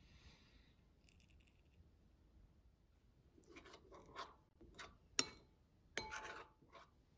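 Metal spoon stirring a thick spice marinade in a glass bowl, scraping against the glass in a run of strokes, with two sharp clinks about five and six seconds in. A faint trickle of oil being poured comes at the start.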